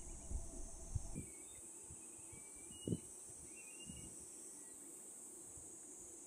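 Steady, high-pitched insect chorus, with a few short faint chirps near the middle and a couple of soft low bumps.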